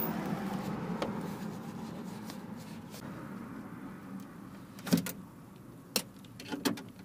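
Plastic door vapour-barrier sheet rustling as it is handled and peeled back, fading out, followed by a few sharp clicks as the speaker wires and connector are handled.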